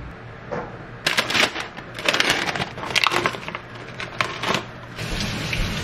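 Clear plastic film on a plastic punnet crinkling and crackling in quick, irregular snaps as it is handled and pulled open.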